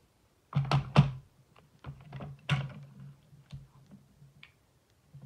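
A paper trimmer being set down on a craft mat: two loud knocks close together about half a second in, another knock a couple of seconds later, then lighter clicks and taps as it and the card are handled.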